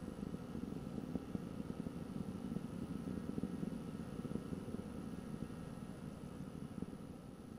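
Steady, distant low rumble of the Atlas V rocket in powered flight, easing slightly near the end.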